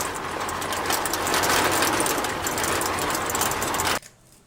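Toy cement mixer truck giving a rapid mechanical rattling whirr, which cuts off abruptly about four seconds in.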